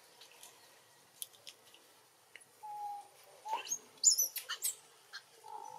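High-pitched animal chirps: a quick cluster of short upward-sweeping squeaks a little past halfway, with a steady held tone briefly before them and again near the end.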